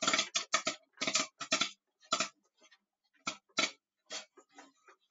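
Popcorn kernels popping in a small electric popcorn machine: irregular sharp pops, several close together at first, then sparser.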